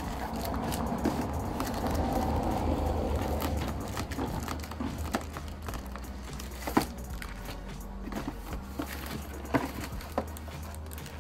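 Cardboard box and plastic-wrapped parts of a breast pump being handled: scattered light clicks, taps and crinkles over a steady low rumble that swells during the first few seconds.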